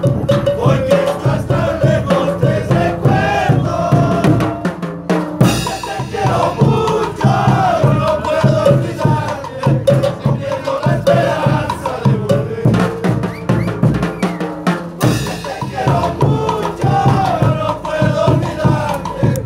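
Street band of zampoñas (siku panpipes) playing a melody over a steady beat of bass drums, snare and cymbal.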